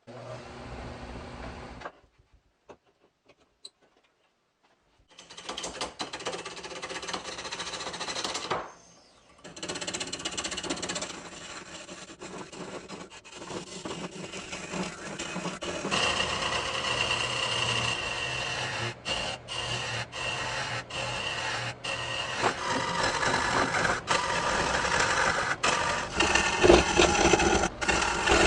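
Homemade wood lathe spinning a glued-up bowl blank while a turning tool cuts the outside of the bowl. It is a continuous scraping, rasping noise of the tool on the wood. The cutting starts about five seconds in after a short hum and a quiet pause, and breaks off briefly near nine seconds and a few times later.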